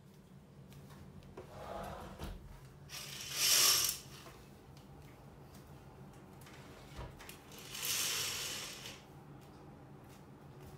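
Fabric curtains being drawn closed, their runners sliding along the curtain track in two pulls: a louder one about three and a half seconds in and a second about eight seconds in.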